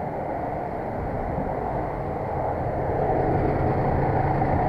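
Dectron dehumidifier blower motor running loud with a steady mechanical drone, growing louder about three seconds in; the motor's bearings are worn out.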